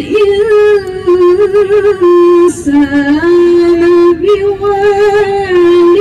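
A woman's melodic Quran recitation (tilawah), sung in long held notes with quavering ornaments. About halfway through the line dips to a lower pitch, then climbs back up and holds a high note.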